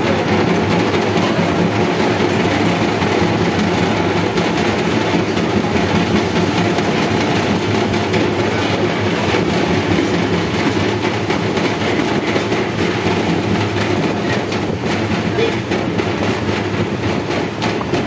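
Loud, steady drone of commercial kitchen equipment: the exhaust hood fan running together with the gas burner under the kadai of frying oil.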